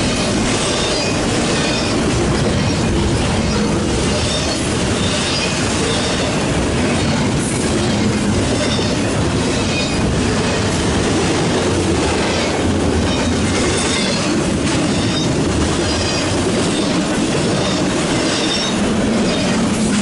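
Double-stack intermodal well cars passing at speed: a steady loud rumble and clatter of steel wheels on rail. Brief high wheel squeals come and go.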